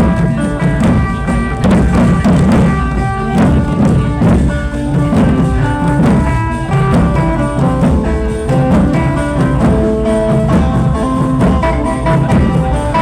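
Music with a steady drum beat under sustained melodic instrument notes.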